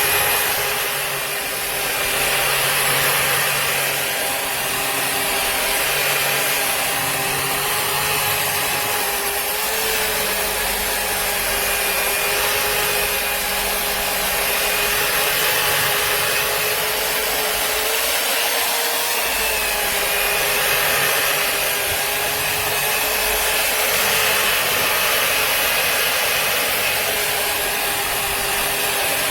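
Electric satin finishing machine (burnishing brush sander) running continuously with a steady high motor whine over a dense rushing noise, its pitch rising slightly twice as the load on it changes.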